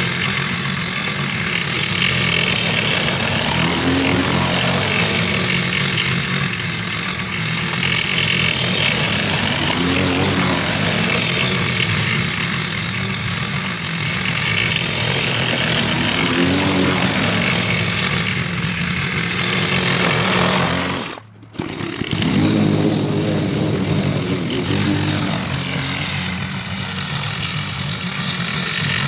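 Gasoline lawn mower engine running steadily under load as it mows. Its pitch swells and eases every few seconds, and the sound drops out briefly about two-thirds of the way through.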